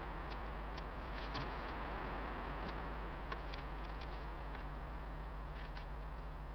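Glowing charcoal in a small tabletop grill giving a steady faint hiss, with scattered small ticks and crackles.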